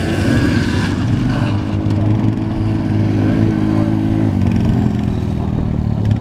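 ATV engine running with a steady low drone, its pitch dropping slightly about four seconds in.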